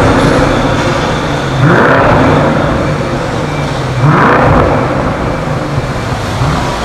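BMW M550i's twin-turbo V8 revved three times through a Fi Exhaust valvetronic catback with quad tips. Each rev climbs in pitch and falls back to a steady idle, spaced about two and a half seconds apart.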